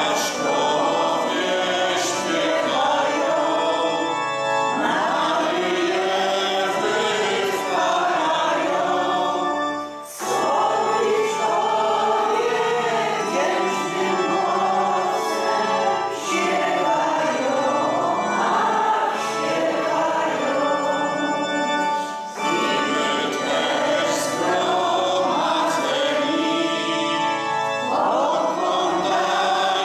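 Church congregation singing a closing hymn, in long phrases with brief pauses about ten and twenty-two seconds in.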